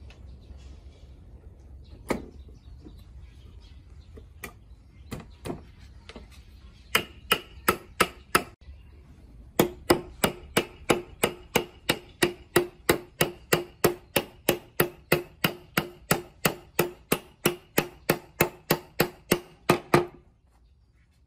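A mallet knocking a wooden chair's back rail down onto its leg tenons, seating the mortise-and-tenon joints. A few scattered knocks are followed by a steady run of about three blows a second from about ten seconds in, each with a short ringing note. The knocking stops just before the end.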